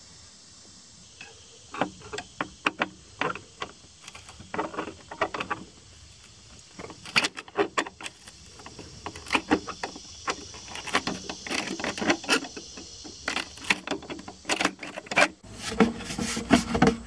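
Irregular metal clicks and knocks of a screwdriver working a worm-drive hose clamp and hands handling the rubber intake boot of an Arctic Cat Wildcat side-by-side. The clicks start about a second in and grow denser and louder near the end.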